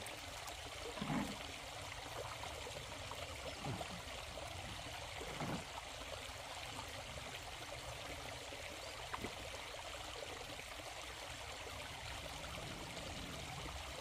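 Shallow stream running steadily over stones, with a few brief soft splashes as a bottle fish trap is lowered into the water and set in place.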